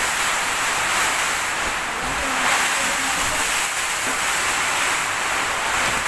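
Typhoon wind and heavy rain: a loud, steady rushing noise that hardly rises or falls.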